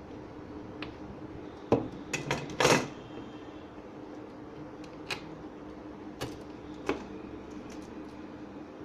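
Sharp clicks and knocks of small hard objects being handled: a cluster of loud ones about two to three seconds in, then single clicks three more times, over a steady low hum.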